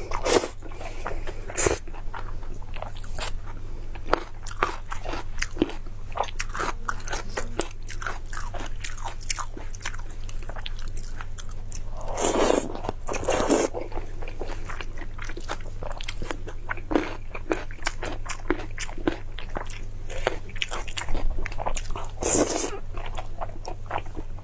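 Close-miked chewing of sauce-coated dumplings: wet smacking and clicking mouth sounds, with louder slurps as a new mouthful goes in about halfway through and near the end.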